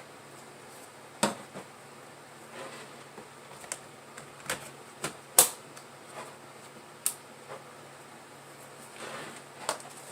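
Hands working on a laptop: a string of sharp clicks and taps at irregular intervals, the loudest a little past halfway, over a faint steady hum.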